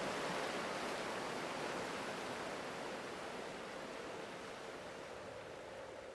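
Rushing water of a shallow, rocky river's rapids, a steady hiss that slowly fades out.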